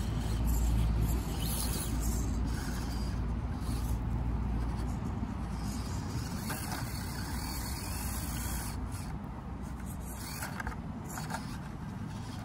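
Axial SCX24 micro crawler on its stock brushed motor, driving slowly up rocks, its motor and gears whirring, over a steady low rumble.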